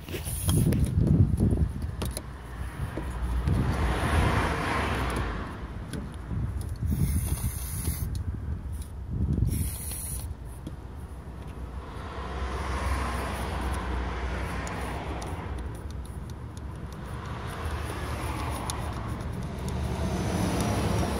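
Aerosol carburettor cleaner sprayed through its straw into a throttle body to loosen carbon deposits, heard as several short bursts of hiss, with hand scrubbing and handling noise. A steady low rumble runs underneath.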